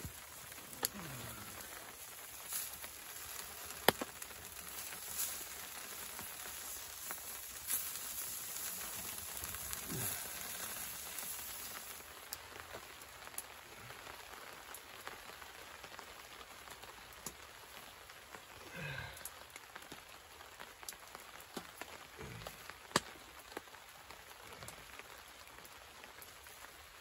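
Small wood-burning camp stove crackling, with scattered sharp pops over a steady hiss of hot dogs sizzling on its hot top. The hiss is brighter in the first half.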